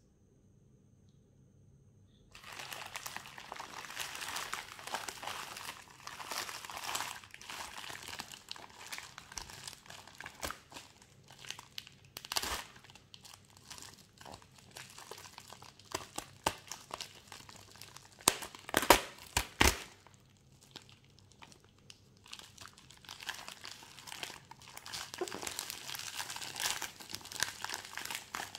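Watch packaging being unwrapped and handled by hand: continuous crinkling and rustling, starting about two seconds in, with a few sharp clicks and taps partway through.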